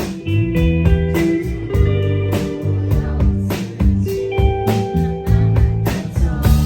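Band music: guitar-led instrumental passage with bass and drums keeping a steady beat.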